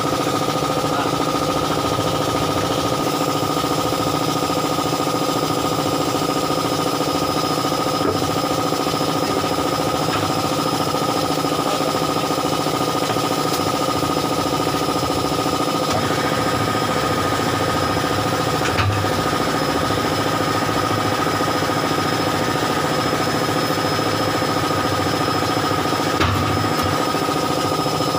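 A motor-driven machine running steadily with a constant hum and whine, and a few faint knocks.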